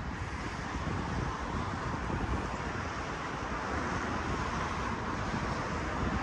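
Steady road traffic noise, an even hiss of passing cars, with wind rumbling on the microphone.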